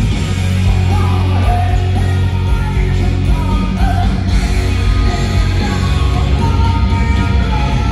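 A live heavy metal band playing loud, with distorted electric guitars, bass and drums, and a male lead singer singing over them.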